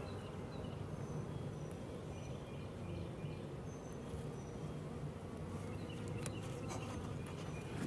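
Honeybees buzzing in a steady low hum around an open hive, with a few sharp clicks and knocks near the end.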